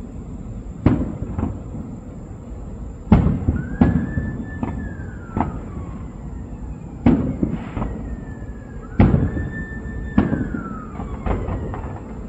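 Aerial fireworks shells bursting in a run of sharp booms, one every one to two seconds, each trailing off in a rumble. Twice, a long whistling tone rises and then slowly falls over the bursts.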